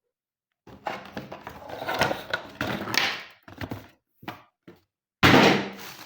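Handling noise of a keyboard and its packaging: rustling and knocks for a few seconds, a few short separate bumps, then a loud thunk about five seconds in that dies away over a second.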